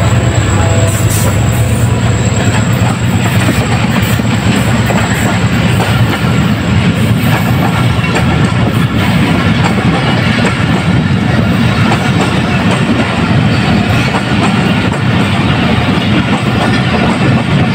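Diesel-hauled passenger express passing close by at speed without stopping. The locomotive's engine rumble is heaviest in the first second or two, then the long train of coaches rattles and clicks over the rail joints as it streams past.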